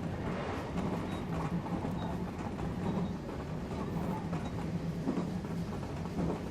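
Odakyu electric train running steadily along the line: a continuous rumble of wheels on rails with a steady low hum underneath.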